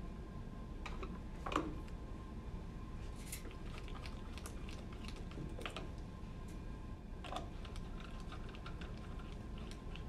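Light, irregular clicks and taps of a small printhead's metal cover and housing being handled and fitted by hand, with one sharper click about a second and a half in.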